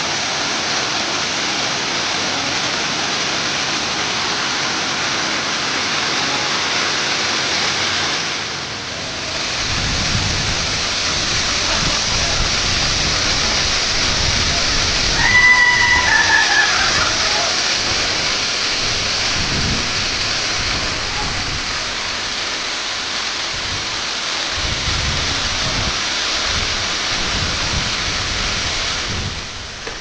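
Waterfall's rushing water, a loud steady roar of falling water. A deeper uneven rumble joins about a third of the way in. About halfway through a brief high tone sounds and falls in pitch.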